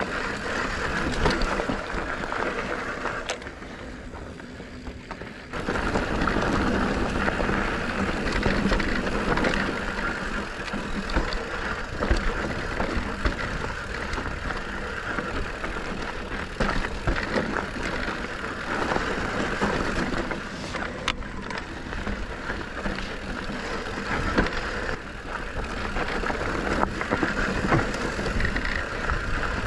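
YT Decoy MX electric mountain bike ridden over loose, rocky dirt singletrack: tyres crunching on gravel, with many short rattles and knocks as it rolls over bumps. It goes quieter for a couple of seconds about three seconds in.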